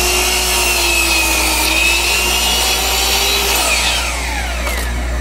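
Hitachi C12RSH 12-inch sliding compound miter saw running at full speed, crosscutting a pine board, with a steady motor whine. About three and a half seconds in, the whine falls away as the trigger is released and the blade spins down.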